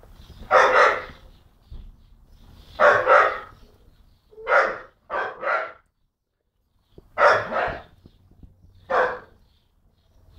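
Young Staffordshire bull terrier barking: about ten loud barks in short bursts of one to three, with pauses of a second or more between bursts.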